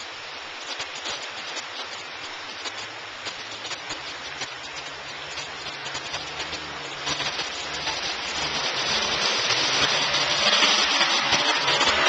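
Side-by-side UTV wading through a flowing creek: rushing and splashing water over a low engine hum. It grows louder from about seven seconds and is loudest as the machine passes close about ten seconds in.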